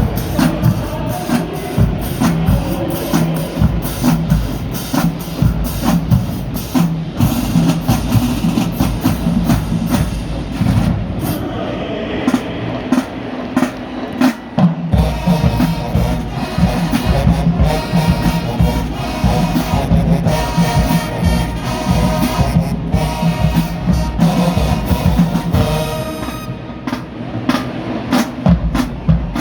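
Marching band playing at full volume: brass over a pounding drumline, with a short break in the drums about halfway through.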